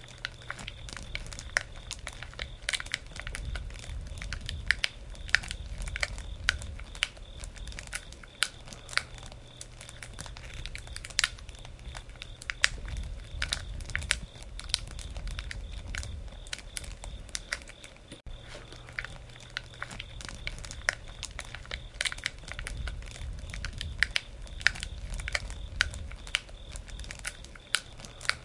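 Wood campfire crackling, with frequent irregular sharp pops and snaps over a low rumble.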